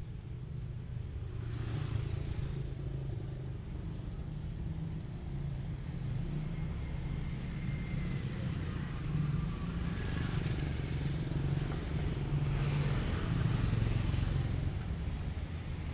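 Steady low rumble of a distant electric commuter train and road traffic, with motorbikes passing close by now and then, the loudest swell about three quarters of the way through.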